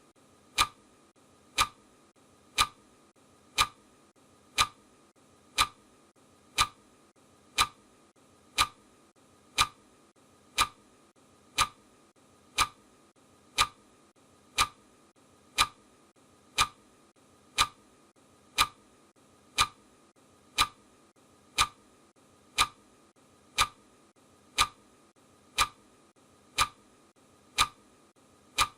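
Clock ticking sound, one sharp tick every second at an even, unchanging pace.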